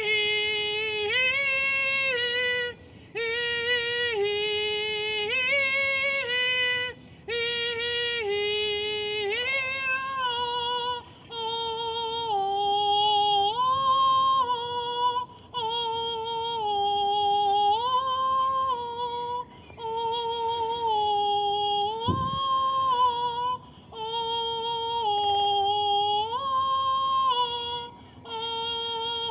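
A woman singing solo in a sound-channeling chant, holding long high notes that step up and down between a few pitches, with a short pause for breath every three or four seconds.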